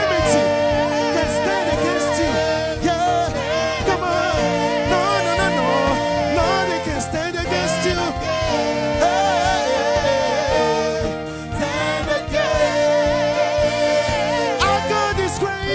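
Live gospel praise music: a singer holds and bends notes with a wavering vibrato over a band playing steady chords, with occasional drum or cymbal hits.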